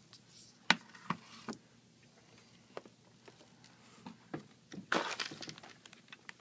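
Small tools and tablet parts handled on a workbench: scattered sharp clicks and taps, the loudest under a second in, then a brief scraping rustle about five seconds in.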